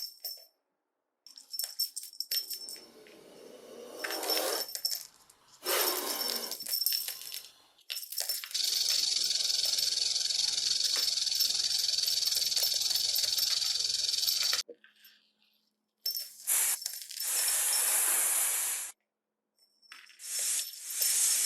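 Snake sound effects: a string of short clips of rattling and hissing, broken by brief silences, with one long steady hiss of about six seconds in the middle and shorter hisses near the end.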